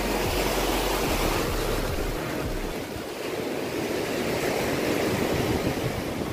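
Ocean surf washing onto a sandy beach, a steady rushing noise, with wind rumbling on the microphone for the first two or three seconds.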